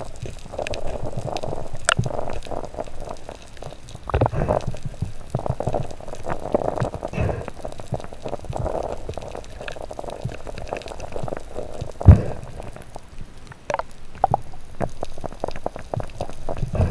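Muffled underwater water noise heard through a submerged camera's housing: water swirling in uneven swells, with scattered knocks and thumps from handling; one sharp low thump about twelve seconds in is the loudest.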